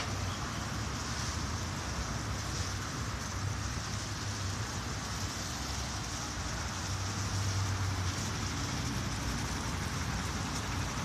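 City bus engine running at low speed as the bus creeps forward, a steady low hum with an even hiss over it, slightly louder about seven seconds in.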